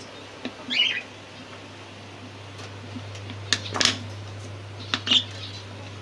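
Plastic bottle drinker knocking and rattling against a wire pigeon cage as it is fitted, with short clatters about halfway through and again near the end. A short bird squawk about a second in, over a steady low hum.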